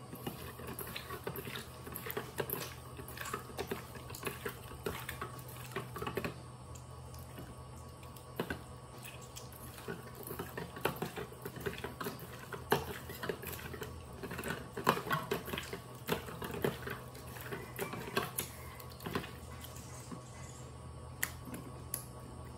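Hands mixing pieces of raw meat in a stainless steel bowl: irregular wet handling noises and small knocks against the metal bowl, over a steady low hum.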